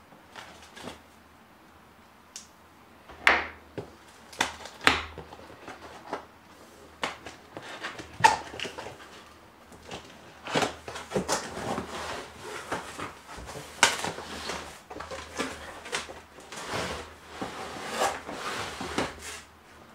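A cardboard box being opened by hand: sharp snaps and knocks of the cardboard, then rustling and scraping of the flaps and inner cardboard packing, growing busier through the second half.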